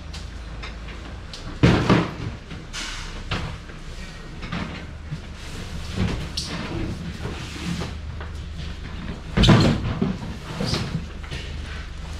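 Goods being handled at a truck: a series of knocks and bangs of doors and crates over a steady low engine hum. The two loudest bangs come about two seconds and nine and a half seconds in.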